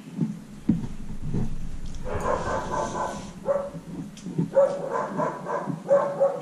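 A dog making high calls: one long call about two seconds in, then several shorter ones. There are a few soft knocks early on.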